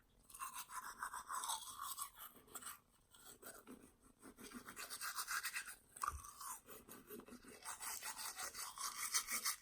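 Teeth being brushed with a toothbrush: quick back-and-forth scrubbing strokes, several a second, with a short pause about three seconds in.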